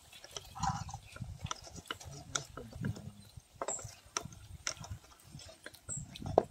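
Irregular clicks and knocks of a wire-mesh spider strainer against an iron kadai as fried potato bajjis are scooped out of the oil and drained.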